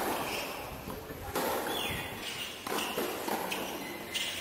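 Tennis rally on a hard court: the ball struck by rackets several times, about a second and a half apart, with players' footsteps between the shots.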